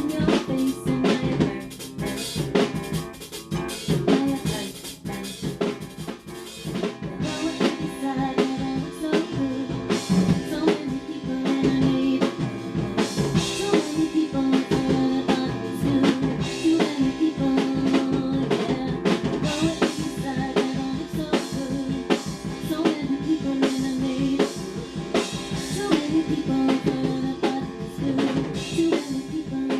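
Drum kit playing a steady rock beat, with snare and bass drum hits, over held guitar chords.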